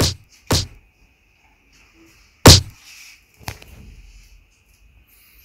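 Four sharp knocks or smacks: one at the start, one about half a second later, the loudest about two and a half seconds in, and a last one about a second after that. A faint steady high whine runs underneath.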